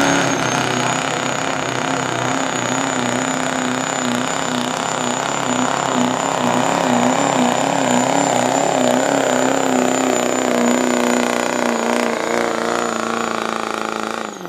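Duramax diesel pickup at full throttle pulling a weight-transfer sled, its engine note held high and wavering under load, with a steady high turbo whistle over it. The sound cuts off suddenly at the end.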